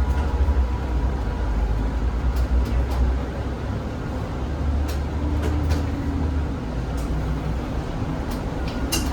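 Zhongtong hybrid range-extended city bus running, heard from on board: a steady low drive rumble with scattered short clicks and rattles.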